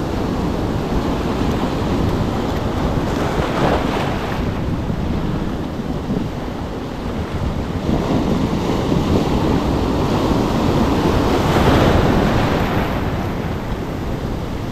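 Surf breaking on coastal rocks, with wind on the microphone. The wash of the waves swells louder from about eight seconds in, peaking near twelve seconds, then eases.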